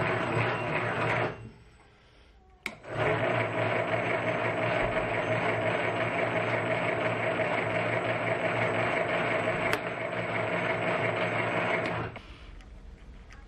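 Metal lathe running, a steady motor and gear hum, while the chuck turns a small bolt being threaded with a hand-held die. The hum breaks off about a second in, there is a single click, and it starts again about three seconds in. It drops away near the end.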